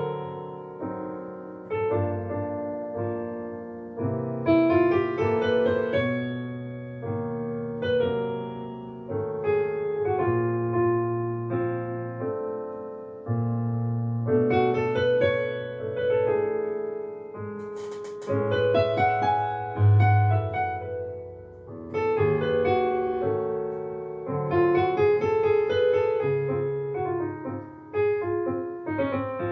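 Yamaha CP4 Stage digital piano played solo: a slow jazz ballad in sustained chords over bass notes, with a melody line on top.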